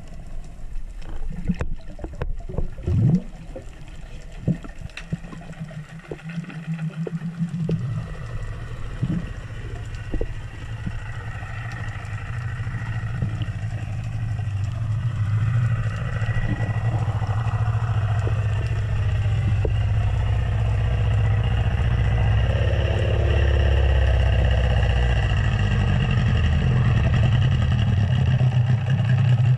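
A boat's engine and propeller heard underwater: a steady low hum that grows steadily louder as the boat comes closer. A few scattered clicks and knocks come in the first several seconds.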